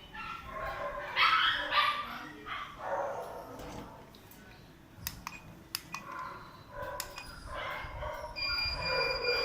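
A dog whining and yelping in short pitched cries, the loudest about a second in and another run near the end, while it is being given electroacupuncture. A few sharp clicks come around the middle.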